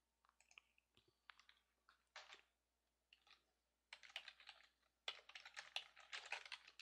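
Faint typing on a computer keyboard: a few scattered keystrokes at first, then a quicker run of keys in the second half.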